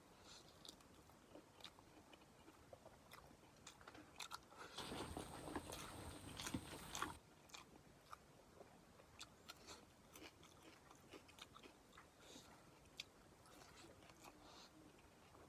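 Close-up eating sounds of beef intestines being bitten and chewed: soft, scattered mouth clicks and smacks, with a louder noisy stretch of about two seconds midway.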